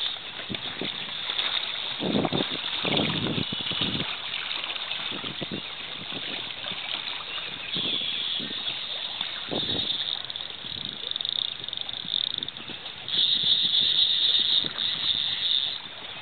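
River water rushing around a boat, with wind buffeting the microphone in irregular low thumps. Louder patches of high hiss come in the second half.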